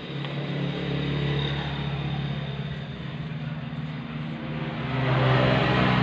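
A motor engine running steadily, growing louder about five seconds in.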